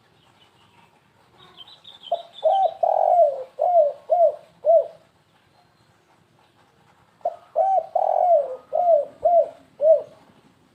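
Spotted dove (tekukur) cooing: two phrases of about six hooting notes each, a few seconds apart, in the stuttering 'kuk-3' style of call.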